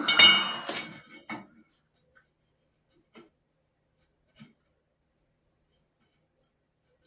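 Cut pieces of steel pipe clanking against metal and ringing, with several loud clanks in the first second or so, then a few faint taps.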